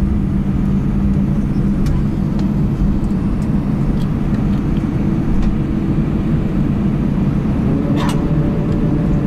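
Jet airliner cabin noise as the plane rolls along the runway after landing: a steady low rumble of engines and wheels. A brief rattle about eight seconds in.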